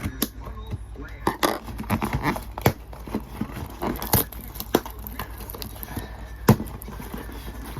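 A package being opened and handled: scattered knocks and clicks, with rustling and crinkling of packaging about a second in.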